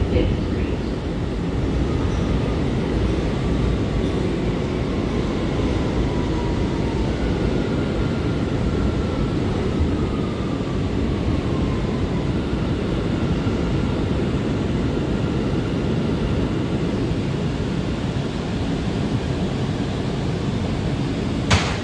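Steady rumble of an R179 subway car's wheels and running gear, heard from inside the car as the train runs slowly along a station platform. Faint, slowly falling whines come and go in the first half, and a single sharp knock sounds near the end.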